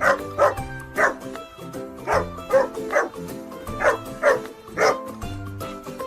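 A dog barking about nine times in quick bunches of two or three, sharp and loud, over background music.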